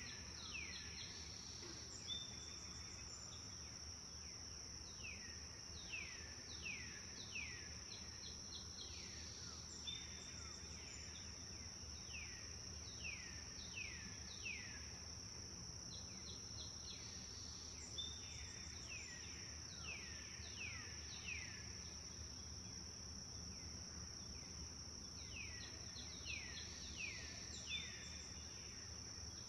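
Birds singing in phrases of quick falling notes, with a new run every few seconds and a few short whistles between them. Under the song is a steady high-pitched drone of insects and a low background rumble.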